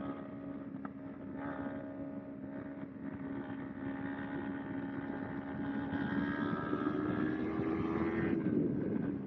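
Kawasaki Ninja 250R's parallel-twin engine running on the road, its pitch holding steady, then climbing gradually over a few seconds and dropping off near the end.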